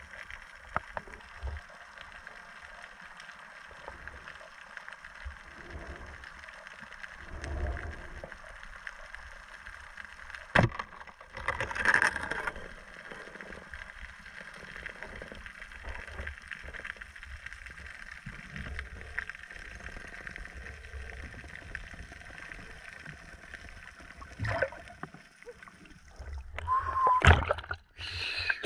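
Muffled underwater water noise from a camera recording underwater while spearfishing, with scattered faint knocks. About ten seconds in there is a sharp click. Near the end, louder splashing and water noise come as the camera breaks the surface.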